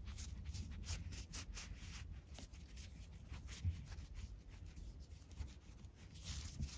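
Fingers rubbing and pressing a braided nylon paracord collar, making short scratchy strokes of cord on cord, with one light bump a little past halfway.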